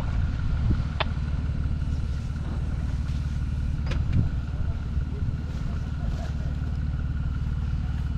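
Jeep Wrangler engine running low and steady as it crawls over a rocky trail, with a few sharp clicks of stones under the tyres, about three in all.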